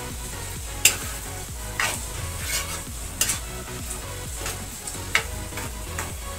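Steel spoon stirring a wet potato-and-carrot curry in a metal kadhai, with several sharp clinks and scrapes of the spoon against the pan, over a steady simmering sizzle.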